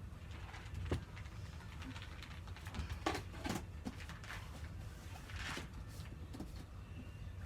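Faint room noise: a steady low hum with scattered soft clicks and knocks, and a short hiss a little past five seconds in.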